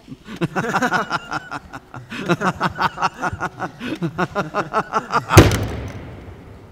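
A voice in quick, rhythmic laugh-like pulses, then about five seconds in a single loud slam on the wooden desk that echoes through the large empty factory hall.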